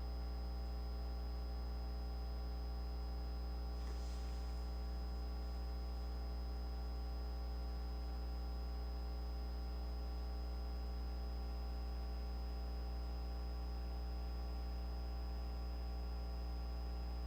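Steady electrical mains hum in the recording, a strong low drone with a row of steady overtones and a faint high whine, with a brief soft rustle about four seconds in.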